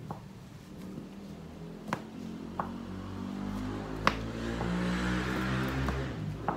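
Salt being shaken from a plastic salt container into a bowl of brown sugar, with a few sharp taps and clicks of the container. Background music comes in about halfway through and grows louder.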